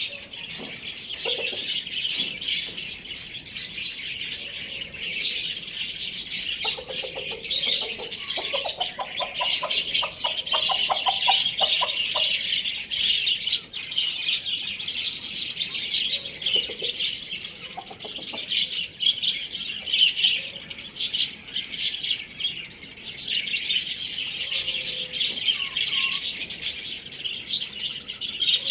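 Many small birds chirping and twittering constantly and densely, like a flock or aviary. A lower, rapidly pulsing call joins in about a third of the way through.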